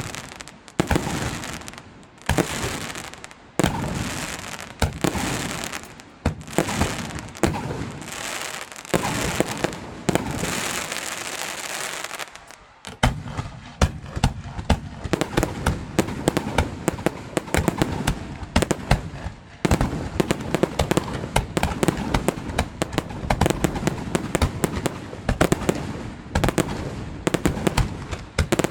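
Fireworks display: aerial shells bursting about once a second, each bang trailing off in crackle. About halfway through this gives way to a dense, continuous run of rapid crackling pops.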